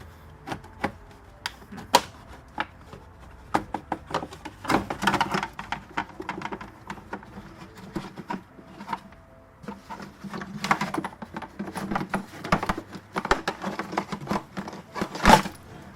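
Lower dashboard panel of a Nissan Patrol Y60 being wiggled and pulled free by hand: irregular clicks, knocks and rattles, with louder scraping about five seconds in and again through the second half.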